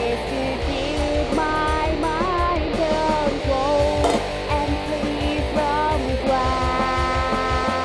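Background rock song with guitar, a steady beat and a sung melody, the singer holding a long note near the end.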